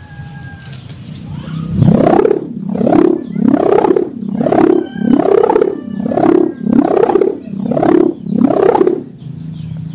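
Sendaren kite hummer, a bamboo bow strung with a 0.20 mm mica ribbon, whirled by hand and humming in about nine swells, each rising and falling in pitch, roughly three-quarters of a second apart: the on-off pulsing likened to a kentongan. It starts about two seconds in and dies down near the end.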